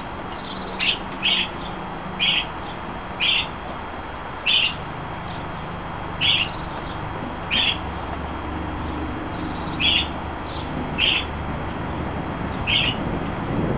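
A bird calling over and over: about ten short, high chirps, one every one to two seconds, over a steady hiss.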